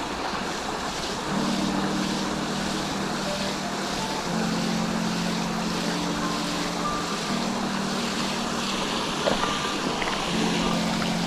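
Rushing river water, with a low hum that starts and stops several times.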